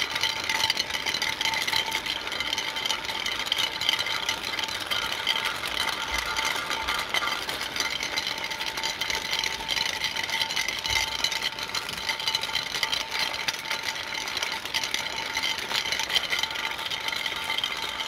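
Small yellow plastic DC gear motor running steadily, a high whine with a fine gear rattle, driving a toy road roller whose drink-can roller rolls over concrete.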